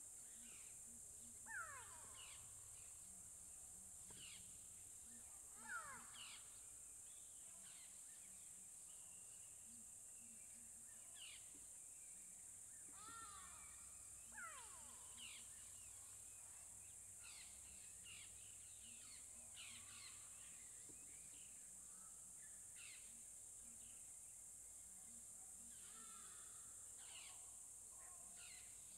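Faint bush ambience: a steady high insect buzz with scattered bird calls. The loudest calls are quick downward-sweeping notes about 1.5 and 6 seconds in, with shorter chirps throughout.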